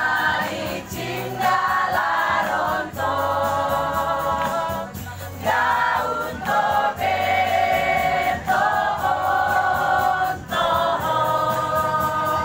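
A choir of mostly women's voices singing together, holding long notes in phrases with short breaks for breath between them.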